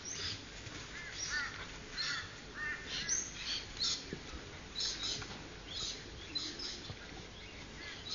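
Dingo puppies squeaking and yipping in short high-pitched bursts, several a second, while they play-fight.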